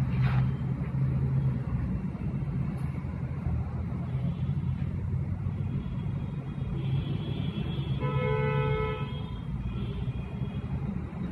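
Steady low rumble of traffic, with a vehicle horn sounding for about a second near the end.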